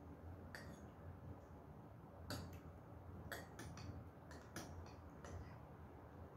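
Faint, irregular clicks and clinks of a metal spoon tapping against a small ceramic bowl, about a dozen in a few seconds, over a low steady hum.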